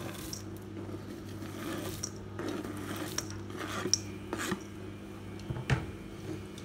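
Knife scraping chopped walnuts off a plastic chopping board into a stainless steel bowl: a few scattered light clicks and scrapes of the blade and nut pieces, over a faint steady hum.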